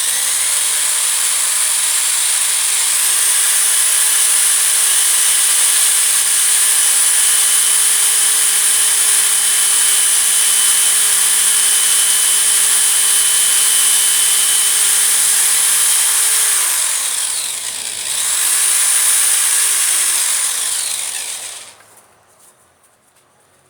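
A cordless screwdriver spinning an electric sander's armature while coarse sandpaper is held against the spinning commutator to dress and clean it: a steady motor whine under a strong sanding hiss. It speeds up a few seconds in, winds down after about seventeen seconds, then runs again briefly and stops shortly before the end.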